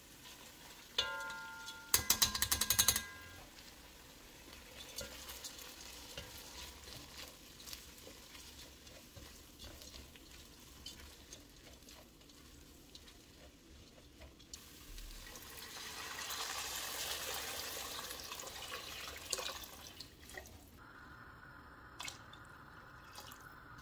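Cooking sounds in a pot. Washed red lentils are tipped from a strainer onto diced potatoes and carrots, making a loud, dense rattle about two seconds in. A spatula then stirs the lentils and vegetables with light scraping clicks, and later water is poured into the pot with a steady splash.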